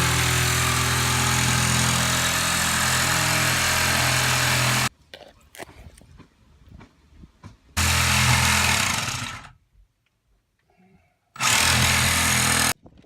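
An electric power tool running in bursts, most likely cutting into the drain pipe: one long run that stops suddenly about five seconds in, then two shorter bursts. The first of these dies away as the motor winds down.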